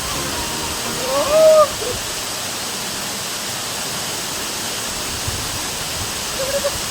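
Waterfall: water falling and splashing in a steady, even rush. About a second and a half in, a short pitched call rises briefly above it.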